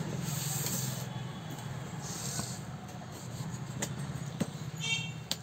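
A cardboard appliance box being handled and turned on a counter: cardboard rubbing and sliding in two short stretches, then a few light taps and knocks, over a steady low background hum.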